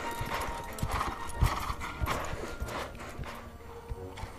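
Hoofbeats of Lipizzaner horses being ridden in a riding hall: irregular hoof knocks with a little horse breathing and stirring.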